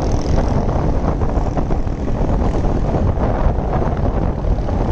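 Motorcycle riding along at a steady pace: the engine runs steadily under a dense rumble of wind on the microphone.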